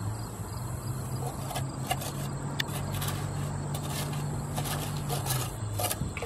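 An engine running steadily, its low hum stepping up in pitch about a second in and dropping back near the end, with a few light knocks.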